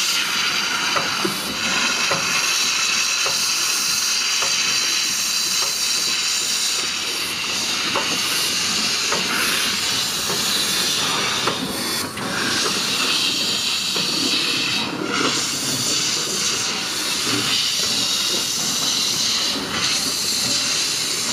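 Restored narrow-gauge Crown steam locomotive hissing steadily, with steam venting around its cylinders as it moves slowly along the track.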